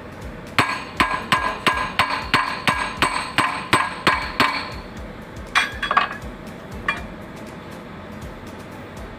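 Hammer striking metal on a truck engine block: a run of ringing blows, about three a second, then three more spaced strikes before it stops.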